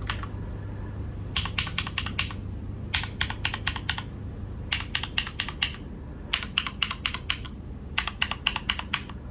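Custom Merisi 500 C/M mechanical keyboard with lubed and filmed Cherry MX Black linear switches, an aluminium plate and GMK keycaps, typed on in five quick bursts of keystrokes. Each burst lasts about a second, with short pauses between them.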